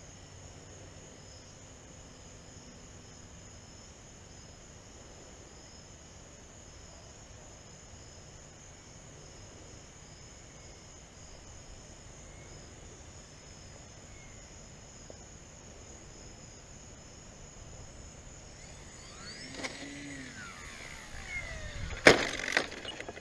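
Faint steady high-pitched insect chirring, then the whine of an E-flite Night Visionaire RC plane's electric motor and propeller swells as it comes in low and close, its pitch sliding up and down with the passes. Near the end a brief very loud rush of noise as the plane passes right by the microphone.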